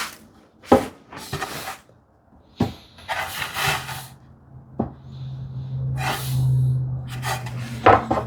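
Ash boards being handled on a workbench: several sharp wooden knocks and short scraping slides as they are moved and set down. A low steady hum comes in about halfway through and stops near the end.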